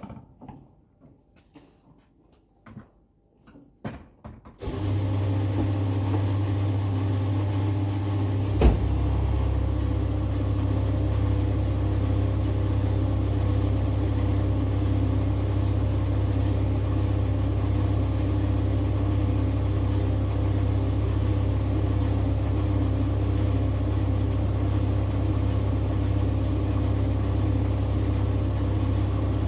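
Fuel dispenser pumping diesel into a car: a few clicks and knocks as the nozzle is lifted and fitted into the filler neck, then the dispenser's pump motor starts with a steady low hum that runs on while the fuel flows, broken once by a single sharp click.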